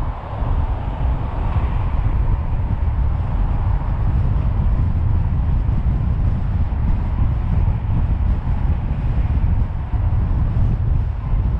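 A car driving steadily along a city road: a continuous low rumble of road and tyre noise, with wind on the microphone.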